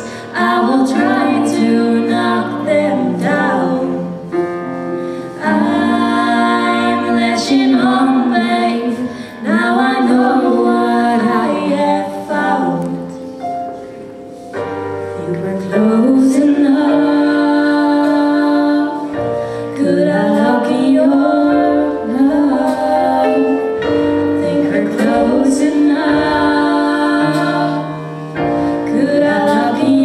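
Two young female voices singing a slow pop ballad into microphones, accompanied by a Yamaha stage piano.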